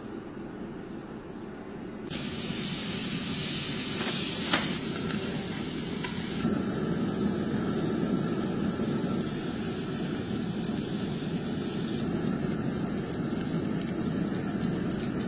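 Hissing and sizzling from a wood-fired barrel barbecue. A louder high hiss sets in suddenly about two seconds in and eases a few seconds later, with a single click in the middle.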